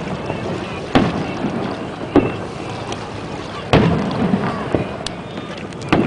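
Aerial firework shells bursting: a series of sharp booms, roughly one every second, some trailing off in a low rumble.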